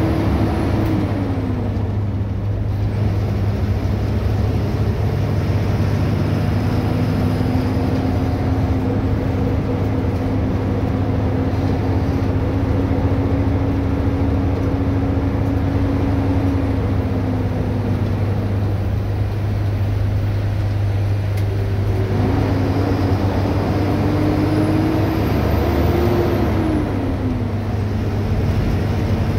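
Diesel engine of an Ashok Leyland school bus running under way, heard from the cabin beside the engine cover: a steady low drone with an engine tone that drops and rises several times as the bus slows and picks up speed.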